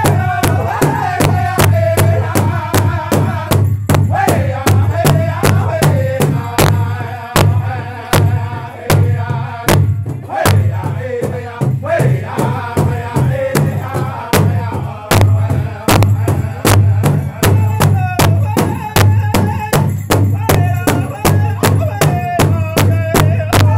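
Powwow drum group: several men strike one large hide-covered powwow drum together with beaters in a steady beat, about three strokes a second, while singing together in high voices, phrases falling in pitch.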